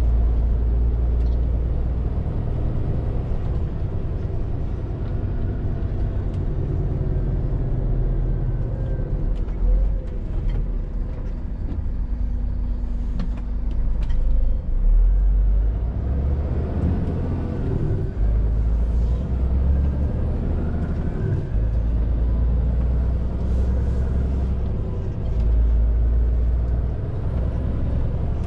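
Scania R450 artic's 13-litre six-cylinder diesel engine and road noise while the truck is driven. It is a steady low rumble, with the engine note shifting up and down in pitch a few times.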